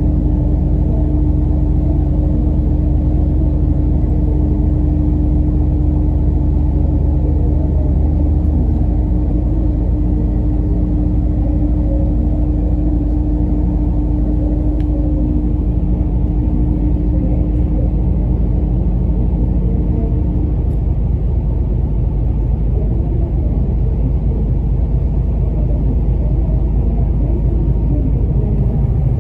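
Car ferry's diesel engine droning steadily, heard from inside the passenger cabin: a loud, even low rumble with a steady hum that drops out about two-thirds of the way through.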